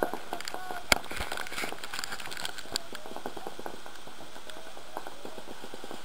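Paintball markers popping sporadically across the field, mostly faint, with one sharp nearby shot about a second in.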